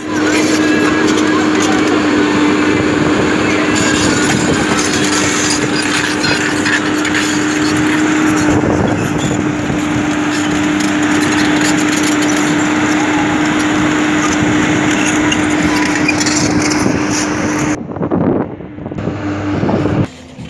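JCB JS220LC tracked excavator digging in rocky ground: its engine runs steadily under load with a steady hum, while the steel bucket scrapes and rocks knock and clatter. The machine sound breaks off near the end.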